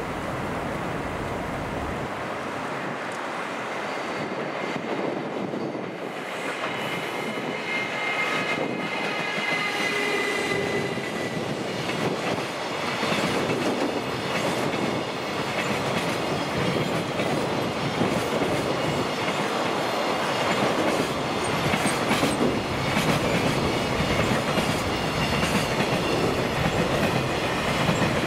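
JR Freight EF210 electric locomotive and its container wagons rolling past, climbing a steep grade under power. A high whine is heard for several seconds as the locomotive goes by. The wheels then clack over the rail joints, louder as the wagons pass.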